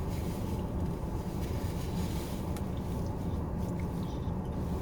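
Steady low rumble inside a car cabin, from the engine idling.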